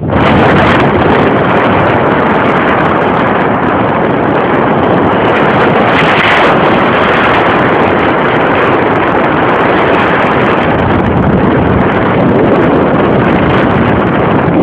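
Loud, steady rush of airflow buffeting the camera's microphone during paraglider flight.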